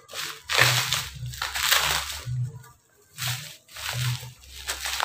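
Bubble wrap and plastic packaging crinkling and rustling in bursts as a parcel is unwrapped by hand.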